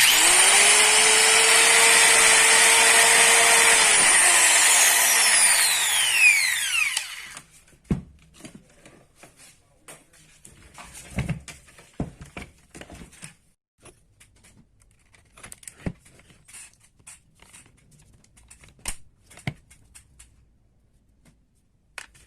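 DeWalt DWE4010 angle grinder's electric motor switched on at once and running steady with no load, then switched off about four seconds in and coasting down in a falling whine until it stops. Light clicks and knocks from handling the tool follow.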